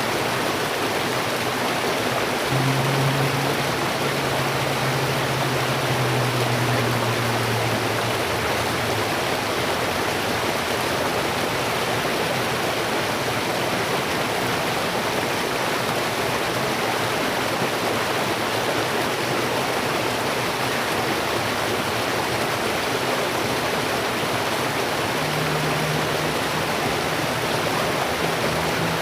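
Steady rushing water of a river or stream flowing. A low steady hum joins for several seconds near the start and again near the end.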